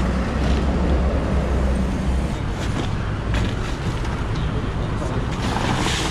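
Street background noise: a low rumble of road traffic that eases a little about two seconds in, under people talking, with a few short knocks and scrapes.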